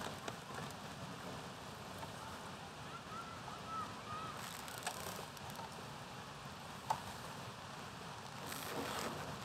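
Faint outdoor ambience with a steady light hiss, a few faint high chirps about three seconds in, and a single sharp click near seven seconds.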